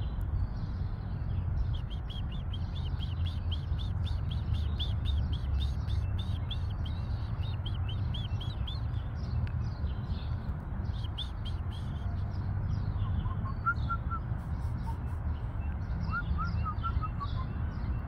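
Songbirds calling in the background: a fast run of short, high chirps repeating through the first half, then a few lower notes falling in pitch near the end, over a steady low rumble.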